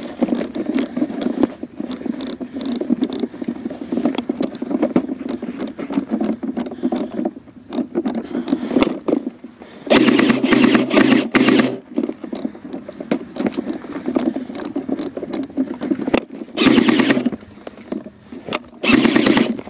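Rustling, scraping and handling noise from a player moving through dry grass and brush with a camera mounted on an airsoft rifle. The noise is louder for about two seconds around ten seconds in, and twice more near the end.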